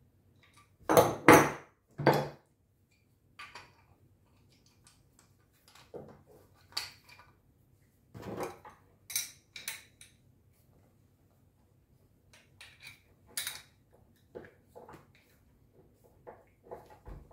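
Metal tools and pipe fittings clinking and knocking on a wooden tabletop as adjustable spanners and stainless steel fittings are handled and set down. The loudest knocks come about a second in, followed by scattered lighter clinks.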